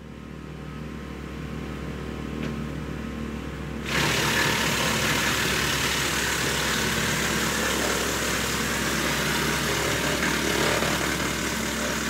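Woodland Mills TF68 PRO PTO-driven wood chipper running off a compact tractor: a steady engine and flywheel hum, then about four seconds in a sudden, much louder steady chipping noise as a branch of about 3 inches across is fed in and cut to chips.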